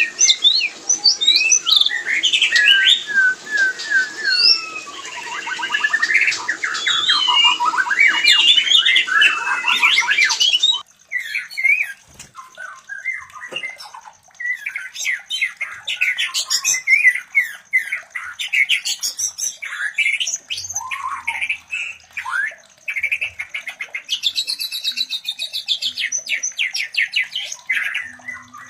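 White-rumped shamas singing and calling during mating: fast, varied whistles mixed with harsh squawks. There is a brief drop about eleven seconds in, after which a different stretch of the same calling continues.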